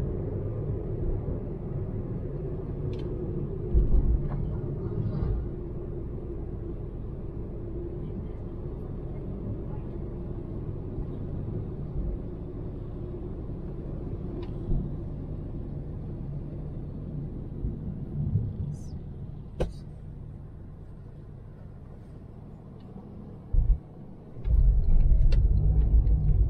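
Road noise inside a moving car's cabin: a steady low rumble of engine and tyres. It swells into heavier low rumbles about four seconds in and again near the end, with one sharp click about two-thirds of the way through.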